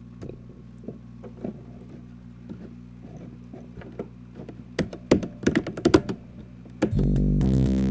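Mechanical keyboard keys clicking, scattered at first, then a quick flurry of louder keystrokes about five to six seconds in, over faint background music. Music comes in loud about seven seconds in.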